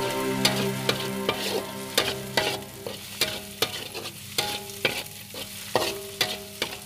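Stainless steel spatula scraping and knocking against a wok in a quick, steady rhythm, about two to three strokes a second, while scrambling eggs with chili seasoning paste that sizzle in hot oil. Each stroke makes the wok ring briefly.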